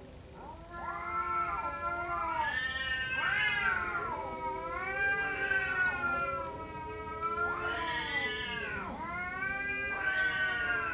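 Domestic cats caterwauling in a standoff: long, drawn-out yowls that waver up and down in pitch and overlap one another, starting about a second in. These are aggressive threat calls, the warning before a cat fight.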